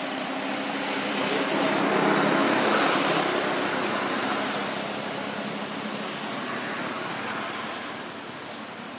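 A road vehicle passing by. Its engine and road noise swells, peaks two to three seconds in, and fades away over the following few seconds.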